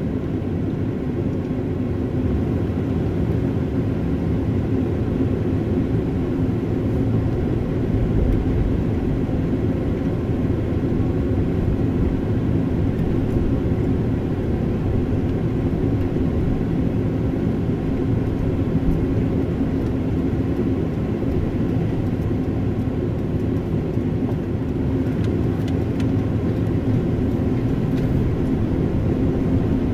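Steady engine and tyre noise of a car driving, heard from inside the cabin.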